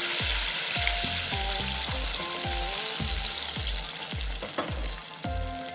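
Water poured into a hot pan of sautéed vegetables, hissing and sizzling as it hits the hot oil, the sizzle easing off toward the end.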